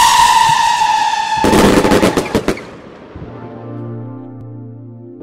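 Fireworks: a loud whistle falling slightly in pitch, broken off about a second and a half in by a rapid volley of sharp bangs and crackles lasting about a second. Background music comes in after about three seconds.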